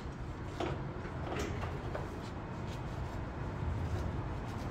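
A few light scrapes and clicks of parts being handled, over a steady low hum.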